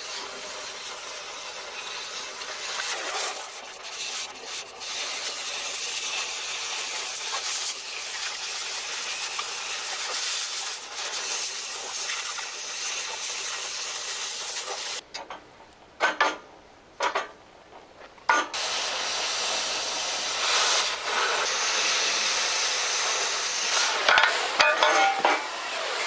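Oxy-fuel cutting torch hissing steadily as it burns through heavy box steel. The hiss drops away for about three seconds a little past the middle, then comes back a bit louder.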